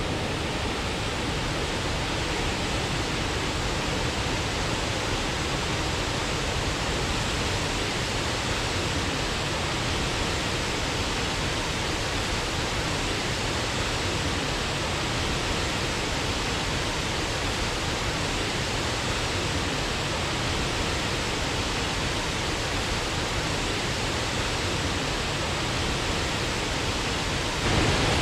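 Waterfall rushing as a steady, even roar of falling water, swelling briefly louder near the end.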